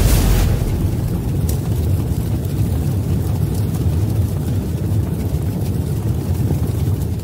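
A deep, steady rumbling noise that starts suddenly and holds level, beginning to fade near the end.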